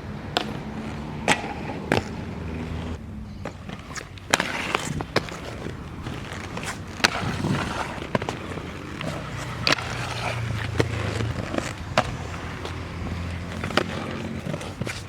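Skateboard rolling on concrete, its trucks grinding and scraping in stretches, with about a dozen sharp clacks of tail pops and landings.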